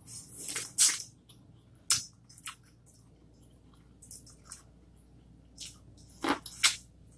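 A person biting into and chewing boiled corn on the cob close to the microphone: short wet bites and mouth clicks at irregular moments, loudest just after the start and about six seconds in.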